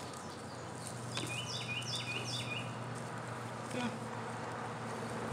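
Steady background drone of highway traffic with a low, even buzzing hum, and a bird's quick run of short descending chirps about a second in.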